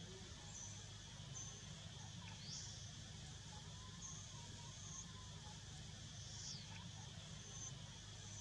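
Faint forest ambience: short high-pitched chirps that recur about once a second over a steady low hum.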